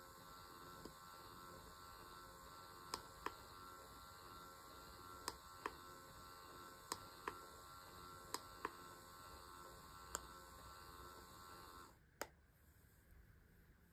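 Cordless roller neck massager pillow running with a faint, steady motor hum as its massage rollers turn. Button clicks come in pairs every second or two as the controls are pressed to change the roller direction and switch the heating. The motor cuts off about twelve seconds in, followed by one more click.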